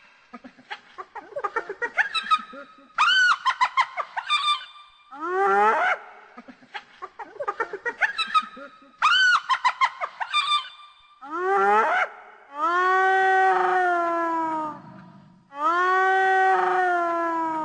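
Hyena calling: quick runs of short, rising-and-falling giggle-like notes, then rising whoops sweeping upward in pitch, and near the end two long drawn-out calls of two to three seconds each, held on a steady pitch that sags slightly at the end.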